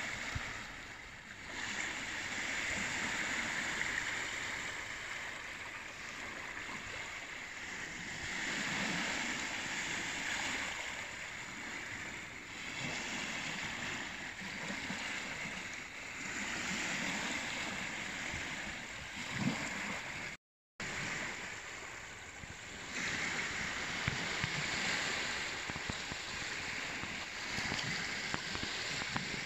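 Small sea waves lapping and washing over a sandy shore, swelling and fading every few seconds. The sound cuts out for a moment about two-thirds of the way through.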